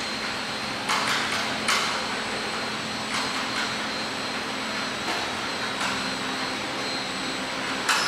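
Stretch hooding packaging line running: a steady machine hum with a faint high whine, broken by five short sharp clacks, about a second in, near two seconds, at three seconds, at five seconds and near the end.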